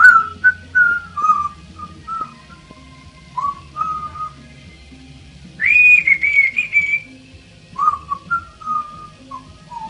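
African grey parrot whistling a string of short whistled notes, with a louder, higher whistled phrase about six seconds in.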